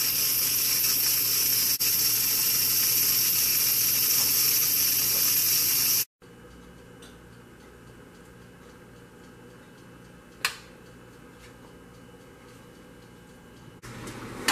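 Steam hissing steadily out of an Instant Pot's steam release valve during a quick pressure release, cutting off suddenly about six seconds in. A single sharp click follows about ten seconds in.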